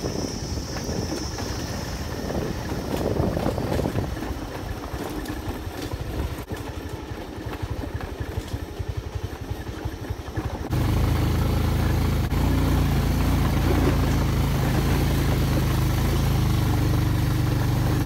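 Motorcycle engine running on a rough off-road track, rough and uneven at first. About two-thirds of the way through the sound jumps abruptly to a louder, steady engine note.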